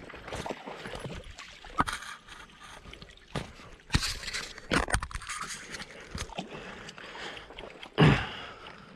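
Water sloshing and splashing in a shallow river, with scraping and several sharp knocks from the body-worn camera being handled; the loudest knock comes about eight seconds in.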